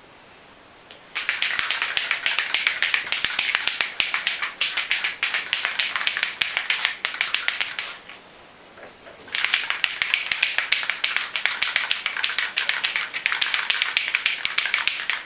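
Aerosol can of Plasti Dip being shaken hard, its mixing ball rattling quickly inside to mix the coating. Two long bouts of shaking, with a short break about eight seconds in.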